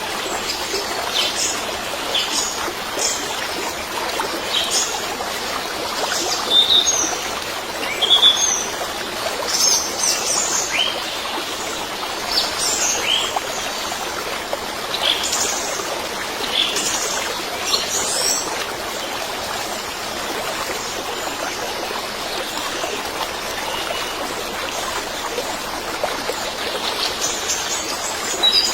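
Small birds chirping over the steady rush of a trickling stream. The chirps come thick for the first two-thirds and thin out towards the end.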